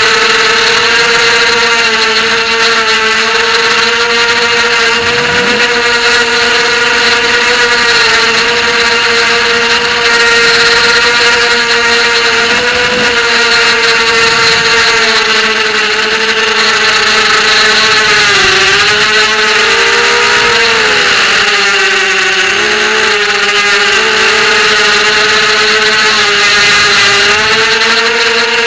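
Racing quadcopter's brushless motors and propellers whining at a steady pitch in flight, the pitch dipping and wobbling for a few seconds about two-thirds of the way through as the throttle changes.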